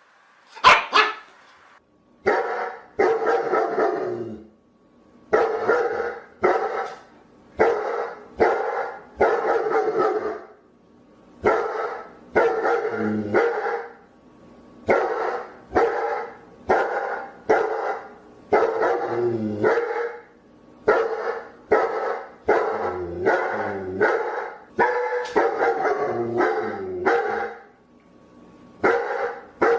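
A dog barking repeatedly in quick runs of two to four barks, with short pauses between the runs. A single sharp crack comes about a second in, before the barking starts.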